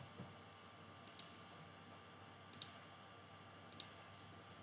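Three computer mouse clicks about a second and a half apart, each a quick double tick of button press and release, over faint hiss. A soft low thump comes just after the start.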